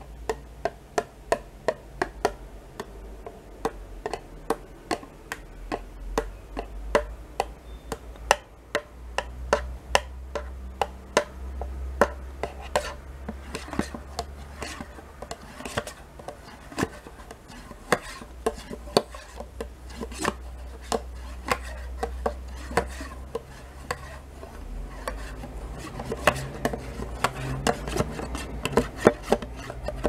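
Metal spoon scraping and clicking against the inside of an emptied plastic yogurt pot, with many sharp taps a few times a second over a low hum.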